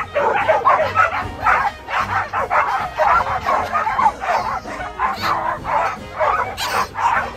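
A large pack of dogs barking over one another without a break, jumping up at balls held above them, with music underneath.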